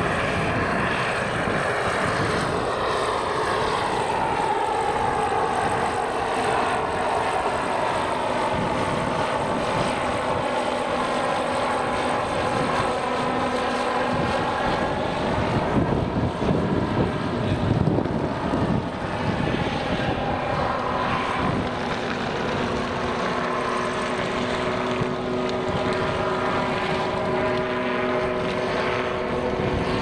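Turbine-powered scale EC-145 model helicopter (Jakadowski Pro X turbine) flying: a steady turbine whine with rotor noise, its pitch falling over the first few seconds as it pulls away and drifting as it circles. Wind rumbles on the microphone for a few seconds in the middle.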